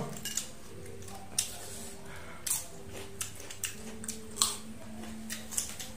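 A raw carrot stick being bitten and chewed: about six short, crisp crunches at irregular gaps.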